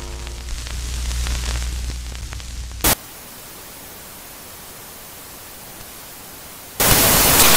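Intro sound effects: a low rumble with hiss for about three seconds, ending in a short crack, then a steady faint hiss. Near the end comes a loud burst of white-noise static.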